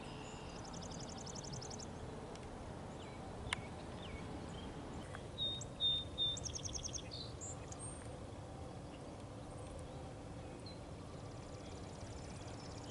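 Songbirds chirping and trilling over a steady outdoor background hiss, with three louder chirps about five to six seconds in.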